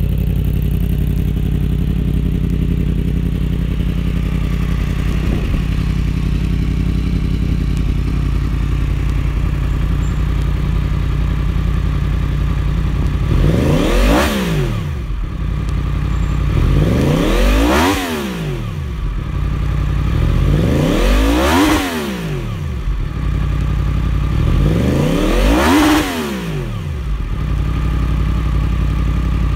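2017 Yamaha FZ-10's crossplane inline-four through a Yoshimura Alpha 3/4 exhaust, idling steadily, then free-revved four times in neutral about halfway through, each rev rising in pitch and dropping back to idle, roughly four seconds apart.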